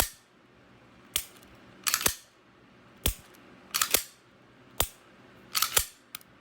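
Sharp metallic clicks and clacks from a Smith & Wesson M&P 2.0 pistol being function-checked by hand: slide racked and the Apex replacement trigger dry-fired, single clicks and quick pairs about once a second. The trigger is going forward and resetting as it should.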